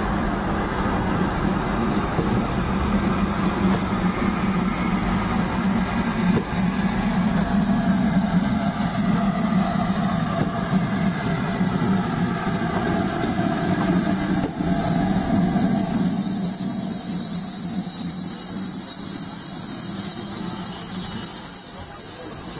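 GWR Modified Hall 4-6-0 steam locomotive 6990 running slowly into a station with its train: a steady running noise of wheels on the rails with hissing steam, easing off in the last few seconds as the engine comes alongside.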